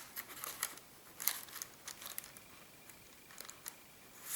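Paper rustling and crinkling in short, scattered rustles as the tea-dyed paper pages, paper-bag pockets and tags of a handmade junk journal are handled and turned.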